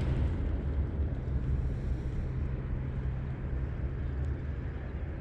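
A motor running steadily, a low even hum with a light rumble and no changes in pitch.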